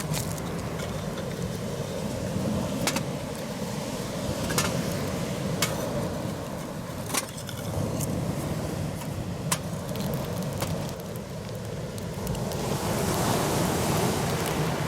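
Steady wind and surf noise, with a sharp crack or click every second or two.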